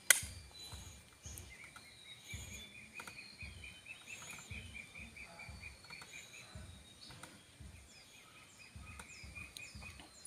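A single sharp crack of a shot from a shrouded air rifle right at the start, then outdoor background with birds chirping, including a rapid run of high chirps, several a second, lasting about five seconds.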